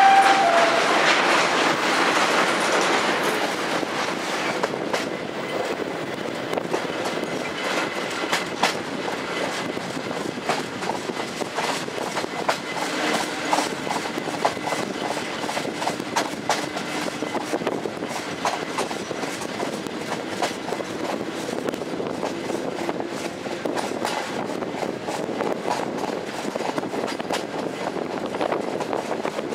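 Passenger train running along the track, heard from an open carriage window, with a steady rumble and many sharp clicks from the wheels over rail joints. The running noise is louder in the first few seconds, while the train is on a steel truss bridge. The tail of a train horn note is heard at the very start.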